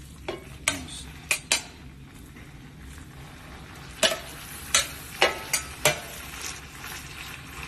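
Raw beef strips sizzling as they are spooned into hot oil in a cast-iron kazan, with a metal spoon clinking sharply about seven times.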